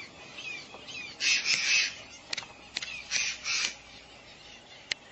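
Birds giving harsh, raspy calls in two bunches, the second a little under two seconds after the first, with a few sharp clicks in between and near the end.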